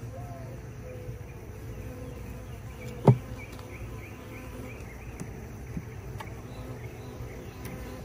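Honey bees buzzing steadily around an open hive box, with one sharp knock about three seconds in.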